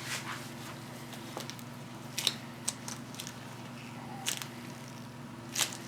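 Scattered short clicks and scrapes of hands working a glue applicator on a shoe during a repair, over a steady low hum.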